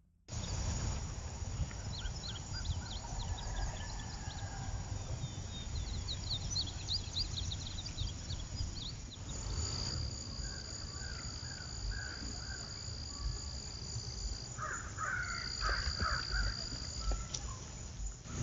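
Outdoor woodland ambience: small birds chirping in quick high notes, then an insect buzzing on one steady high tone in two long stretches, with harsher bird calls near the end. A steady low rumble of wind on the microphone lies underneath.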